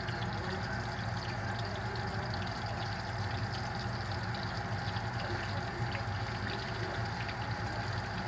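Lobsters deep-frying in hot oil: a steady sizzle with small fast pops and crackles, over a constant low hum.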